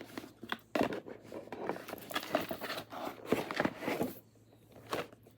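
Blind-box packaging being handled and opened: a busy run of rustles and small clicks that stops about four seconds in, then a single light knock near the end.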